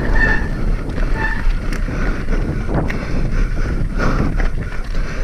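Wind buffeting the microphone over the rattle and clatter of a hardtail mountain bike riding over rough, rocky ground. A short high squeal comes at the very start and again about a second in.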